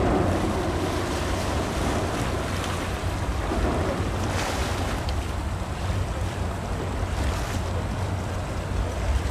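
Wind buffeting the microphone over the wash of waves, with a low, steady rumble underneath. A brief louder surge of wind or splash comes about four and a half seconds in.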